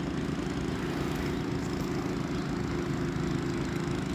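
An engine running steadily at an even speed, a low drone with no change in pitch.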